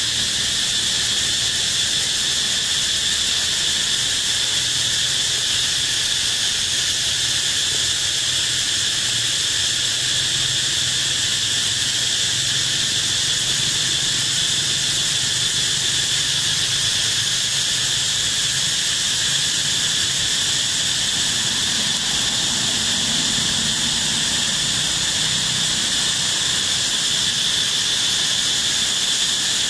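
Insect chorus: a steady, high-pitched drone that holds unbroken throughout.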